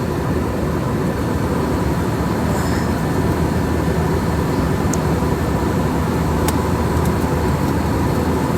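Airliner cabin noise: a steady low rumble of engines and rushing air with a faint steady hum above it, and a couple of faint ticks.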